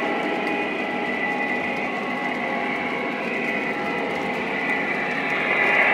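Lionel O-gauge model trains running on the layout: a steady rumble of wheels on track with a motor whine, growing a little louder near the end.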